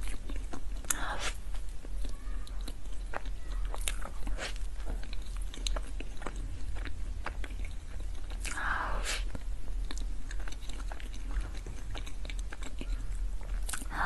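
Close-miked eating sounds of soft layered crepe cake: wet chewing, lip smacks and many small mouth clicks, with three louder swishy mouth sounds about a second in, around the middle and near the end. A steady low hum runs underneath.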